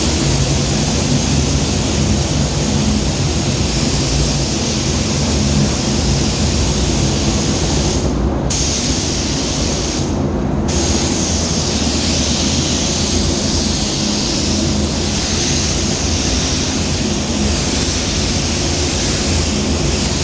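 Iwata WS400 spray gun with a 1.3 tip spraying Cromax Pro waterborne basecoat: a steady loud hiss of air and paint that cuts off briefly twice, about 8 and 10 seconds in, as the trigger is let off between passes. A steady low rumble of the spray booth's air runs underneath.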